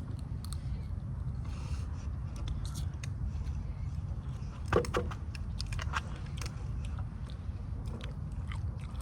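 Close-up eating of a seafood boil: chewing and biting with scattered small clicks and crunches, and a louder crunch about five seconds in, over a steady low rumble.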